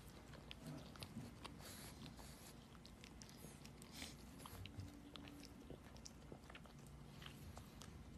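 Pug licking and mouthing a plush toy: faint, scattered small mouth clicks and smacks.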